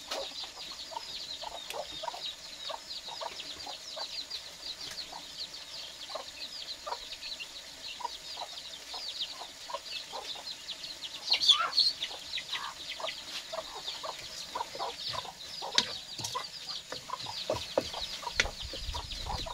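Chickens clucking and peeping: many short high chirps, several a second, with a louder call about eleven and a half seconds in.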